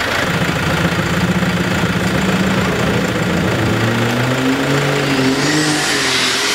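Competition pulling-tractor engine running: a steady engine note for the first few seconds, then engine tones that waver up and down in pitch, with a rising hiss joining about five seconds in.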